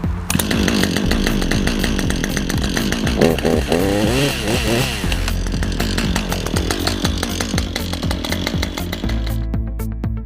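Husqvarna two-stroke chainsaw running, its engine revving up and down a few times in the middle, then cutting off near the end. Background music plays underneath.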